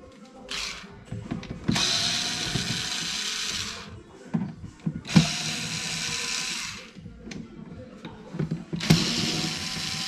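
Cordless power screwdriver running in three spells of about one and a half to two seconds each, its motor whine rising slightly as it spins, driving screws out of the underside of a DJ unit's casing. Short clicks and knocks of the tool and screws come between the runs.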